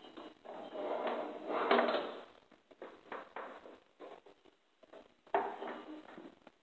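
Rubber drive belt of a Craftsman YS4500 riding mower being pulled out from around its pulleys and frame: irregular scraping and rustling of the belt against metal, heaviest in the first two seconds, with a few small knocks and another short scrape about five seconds in.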